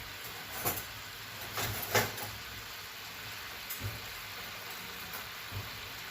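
Food sizzling in a frying pan, a steady hiss, with a few sharp knocks of a utensil against the pan, the loudest about two seconds in.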